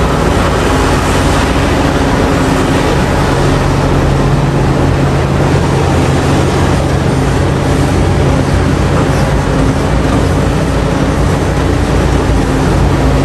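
CAT 6015B hydraulic mining excavator's Cat C27 diesel engine running steadily under load with a constant low drone, as the machine swings a loaded bucket over a dump truck.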